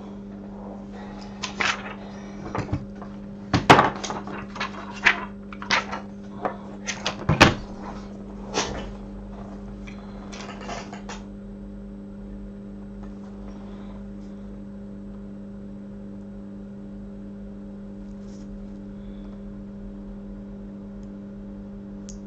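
Light clicks and taps of small tools being handled at a microsoldering bench, scattered through the first half, over a steady electrical hum that carries on alone afterwards.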